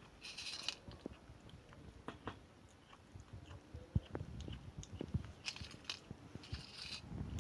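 A kitten eating, with irregular chewing and crunching clicks and a few short hissy bursts, about three of them, near the start and in the last two seconds.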